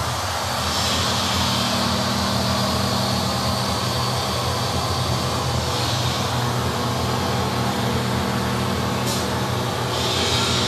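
Sustained low electronic drone from the performance's score, steady layered low tones under a hiss that swells up and fades away several times.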